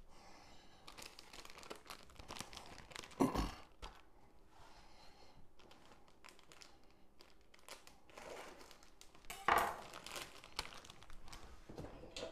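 Plastic bag of shredded mozzarella cheese crinkling as it is handled and torn open, with a knock about three seconds in and a louder rustle near ten seconds.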